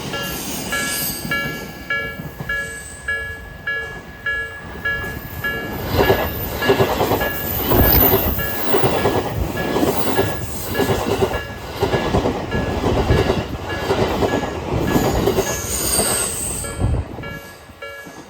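Level crossing warning bells ringing in a steady, even pattern while an Eidan 8000 series commuter train passes through the crossing. From about six seconds in, its wheels clatter over the rail joints in a steady rhythm for about eleven seconds, then the train fades away and the bells keep ringing.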